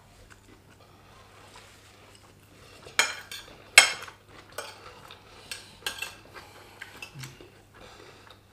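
Metal spoon and fork scraping and clinking against ceramic dinner plates of rice. A run of sharp clinks starts about three seconds in, the loudest one a moment later.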